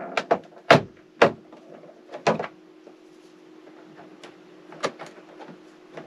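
Plastic ceiling air-conditioner vent grille and filter clicking and knocking as they are pried and tugged loose. There are three sharp knocks in the first two and a half seconds, then a few lighter clicks, over a faint steady hum.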